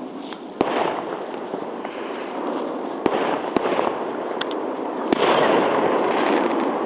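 New Year's Eve fireworks going off: a continuous crackle with four sharp bangs, the loudest about five seconds in, followed by a thicker burst of crackling.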